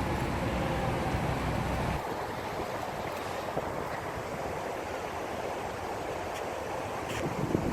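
Wind buffeting the microphone: a heavy low rumble that eases about two seconds in, leaving a steady hiss, with a few faint clicks near the end.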